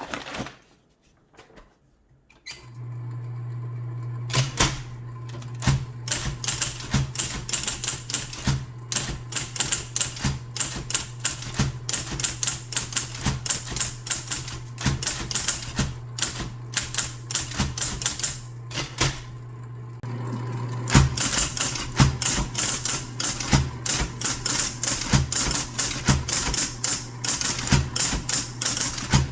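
IBM Model D electric typewriter: the motor comes on with a steady low hum a few seconds in, then the keys strike in runs of typing, with a short pause about two-thirds of the way through before faster typing resumes.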